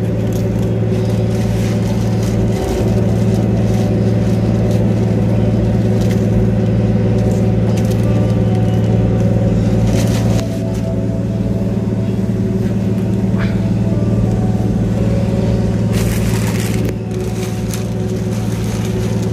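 A fishing boat's engine running steadily with a low, even drone. A few short noises sound over it, the most prominent about 16 seconds in.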